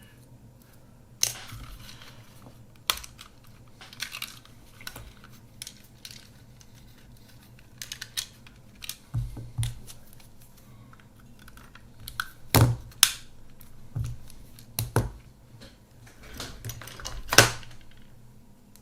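Irregular small clicks, taps and knocks of a plastic film camera body and small hand tools being handled while it is taken apart, with the loudest knocks about two-thirds of the way through and near the end.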